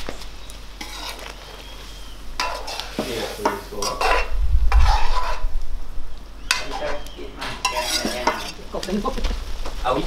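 A metal spoon stirring and scraping in a two-handled metal pot of simmering curry gravy, the stirring coming in irregular scrapes and clinks from about two seconds in. A low rumble comes in around four seconds in.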